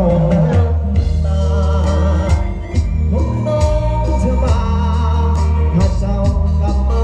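Thai band music played loud through a rot hae sound-truck system of Thai Audio SR18 bass cabinets and TD-112 mid-range cabinets. A singer and electric guitar ride over a steady beat and heavy deep bass, with a brief dip in loudness about two and a half seconds in.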